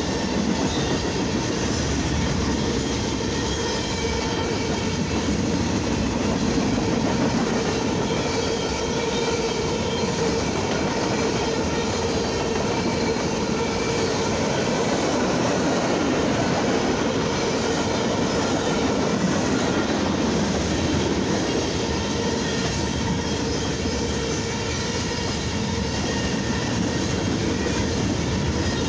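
Freight cars of a long mixed freight train (boxcars, covered hoppers and tank cars) rolling past on the main line: a steady rumble of steel wheels on rail that holds even throughout.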